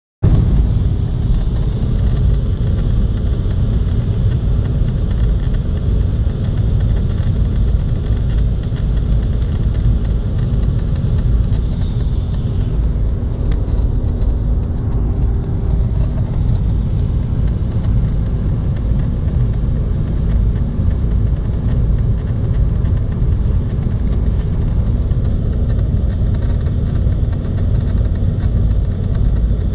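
Cabin of a BMW E46 330i on the move: steady road and engine rumble, with faint irregular clicks from the steering column behind the instrument cluster, a noise of unknown cause.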